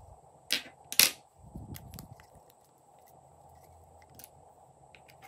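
Small plastic caps of toy lipstick-shaped clay containers clicking as they are pulled off and handled. There are two sharp snaps about half a second apart just after the start, then a few lighter clicks.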